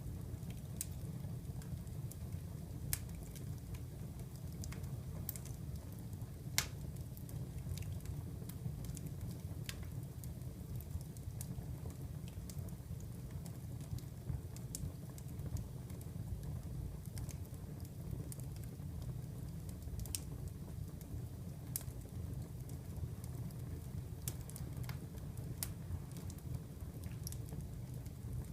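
Wood fire burning in a fireplace: a steady low rumble under irregular crackles and snaps, with a few louder pops, the sharpest about three and six and a half seconds in.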